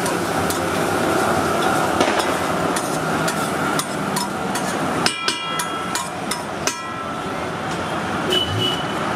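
Steel spatula chopping and scraping egg bhurji on a large flat iron griddle: a run of quick metal taps and clicks, with two louder ringing clangs about halfway through and again a second and a half later, over a steady background hum.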